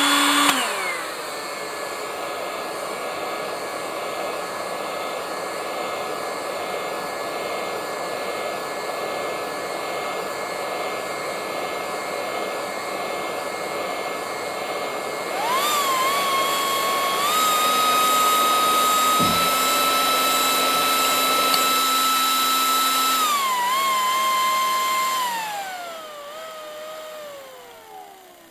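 DPS-1200FB server power supply fan, Arduino-controlled, running steadily, then spooling up in a few quick steps to a loud, higher whine about halfway through as its temperature sensor is heated with a heat gun. It holds there, then steps down and winds down near the end as the sensor cools.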